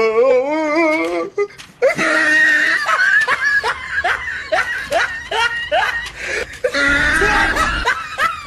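People laughing hard: a long wavering laugh, then a run of short, rapid laughing bursts.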